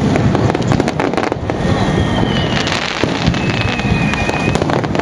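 Aerial fireworks display: shells bursting, with dense crackling over a low rumble of reports. Two thin, steady whistles sound in the middle, each about a second long.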